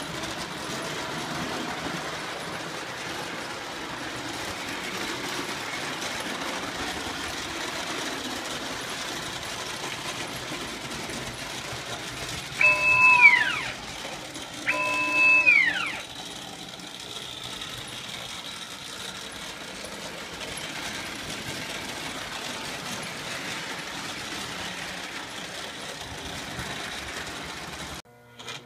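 Lionel 8404 PRR steam turbine model locomotive, newly converted to TMCC, running on O-gauge track: a steady hum and rumble of motor and wheels. About halfway through, two short whistle blasts about a second apart, each dropping in pitch as it ends.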